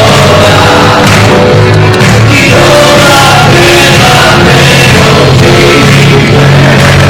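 Loud live worship band music: a man singing into a microphone over electric keyboards.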